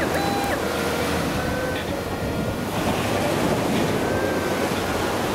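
Steady surf and wind noise on the microphone. In the first half-second a Whites TDI pulse induction metal detector sounds its target tone, jumping up and down in pitch as the coil sweeps over a buried target. Fainter steady tones come and go later.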